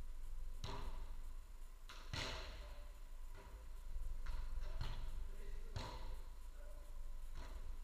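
A footvolley ball struck by players in a rally: about eight sharp thumps at uneven intervals, the loudest about two seconds in, over a steady low hum.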